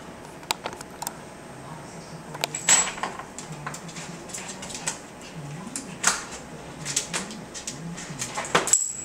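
A Yorkshire terrier's claws scrabbling against a plastic baby gate as she climbs over it: a series of sharp clicks and scrapes, the loudest about three seconds in, about six seconds in and just before the end.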